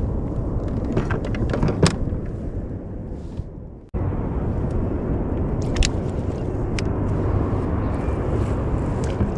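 Steady low rumble of wind on the microphone over open water, with scattered sharp clicks and taps of gear handling on the kayak. The sound fades down and cuts back in abruptly about four seconds in.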